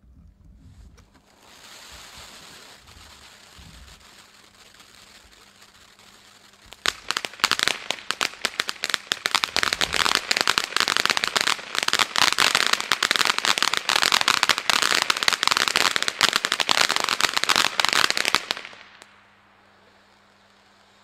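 Weco Color Engine firework fountain burning: it starts with a steady hiss of sparks, then about seven seconds in breaks into dense, loud crackling. The crackling runs for about twelve seconds and cuts off abruptly near the end, leaving a faint hiss.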